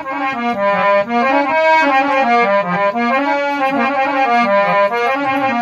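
Harmonium, a hand-pumped reed organ, playing a melody of short notes that step up and down.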